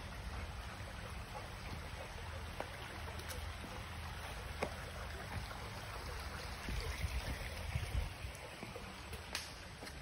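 Shallow creek water trickling over a flat sandstone bed, with a low rumble underneath. A few footfalls and taps, loudest around the seventh and eighth seconds.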